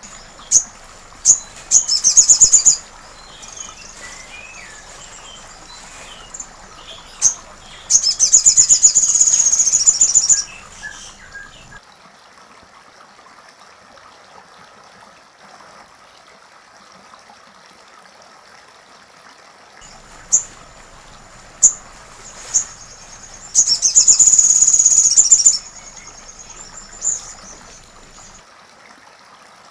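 Sogon songbird singing 'platuk sampit' song material: single sharp, high chips followed by rapid, very high trills, each trill lasting two to three seconds. There are two long trills, about eight seconds in and again about twenty-four seconds in, over a steady faint background hiss.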